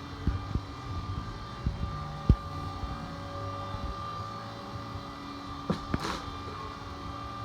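Steady hum of running machinery with several constant tones, broken by a few dull thumps in the first couple of seconds and two sharp clicks near the end.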